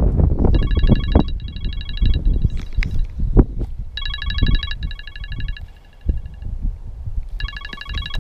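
A phone ringtone ringing in pairs of short bursts, repeating about every three and a half seconds, over wind rumble on the microphone and a few handling knocks.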